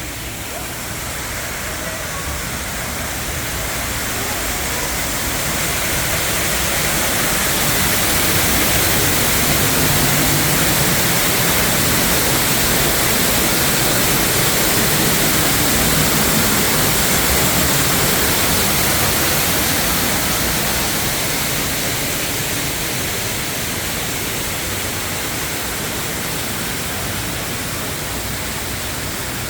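Steady rush of falling water, swelling louder through the middle and easing off again toward the end.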